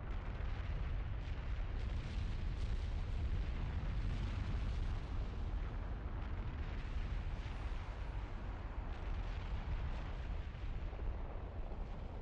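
Wind buffeting a microphone: a steady, deep rumbling noise with no tone or rhythm in it.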